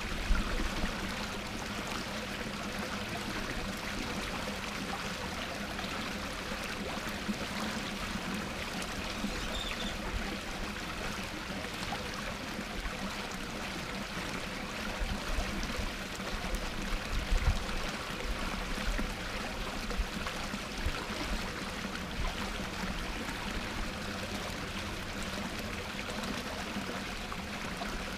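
Small rock waterfall spilling into a garden pond, a steady splashing flow of water.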